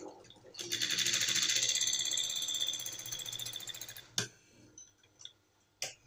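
Sewing machine running a short seam, stitching a zipper onto a trouser fly flap: a fast, even chatter of stitches that starts about half a second in and dies away after about three seconds. A sharp click follows, then a few faint clicks.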